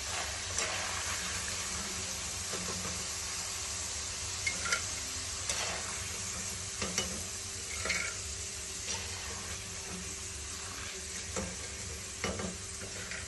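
Potato french fries sizzling in hot oil in a kadhai as they are stirred and lifted out, done, with a wire skimmer. The skimmer clicks and scrapes against the pan now and then over the steady hiss of the frying.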